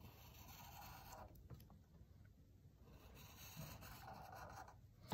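Faint scratch of a Sharpie felt-tip marker drawing lines on paper, in two strokes: one at the start and another from about three seconds in.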